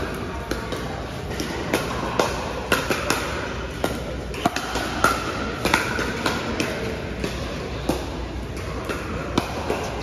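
Pickleball paddles hitting a plastic ball in a doubles rally: sharp, irregular pops, mixed with more pops from neighbouring courts, echoing in a large indoor hall.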